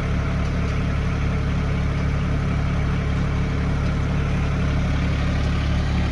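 Branson 1905 compact tractor's diesel engine running steadily at a constant speed.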